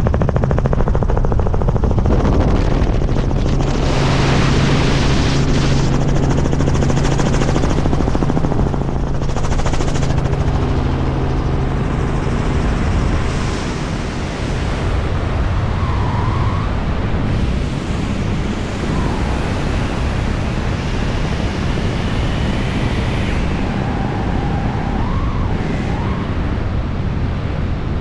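Helicopter engine and rotor drone heard inside the cabin, with a rush of wind from the open door. About halfway through this gives way to a steady rush of wind over the microphone in wingsuit flight, with a few faint wavering whistles.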